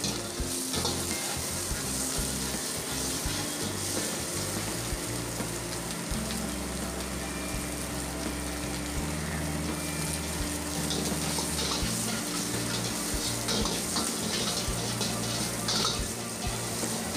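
Onion, capsicum and egg sizzling in a large black iron wok over a high gas flame, with a metal ladle scraping and tossing them against the pan. The sizzle gets a little louder in the last few seconds as steam rises thickly from the wok.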